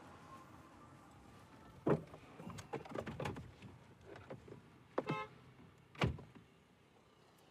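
An Audi car's passenger door being opened and shut from inside the cabin: a run of clicks, knocks and rustling, a short pitched tone about five seconds in, then the door closing with a heavy thud about six seconds in.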